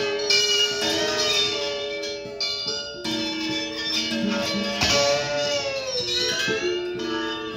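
Electric guitar played flat across the lap, with a metal object held on the strings. It gives ringing, sustained notes that bend in pitch, with a long falling glide about three-quarters of the way in.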